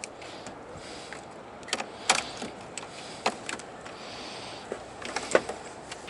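A handful of sharp clicks and knocks, spread out and isolated, from hands working the motorcycle's controls and cable connections, over a faint steady background. The engine is not yet cranking or running.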